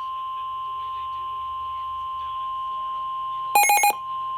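Weather radio warning alarm tone: a single steady high-pitched tone of about 1 kHz, sounding to announce a severe weather warning. About three and a half seconds in, a brief cluster of rapid, louder electronic beeps cuts across it.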